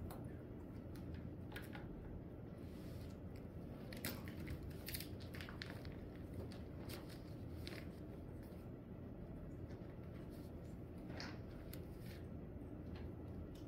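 Quiet classroom room tone: a steady low hum with scattered small clicks and rustles, a cluster of them about four seconds in.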